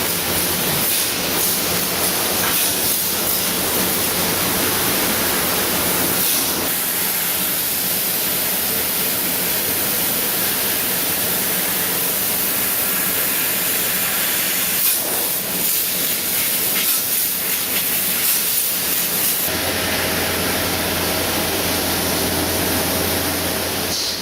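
Trumpf L3030 CNC laser cutting sheet metal: a loud, steady hiss of gas and machine noise that shifts in character a few times, with a low hum joining about three-quarters of the way through.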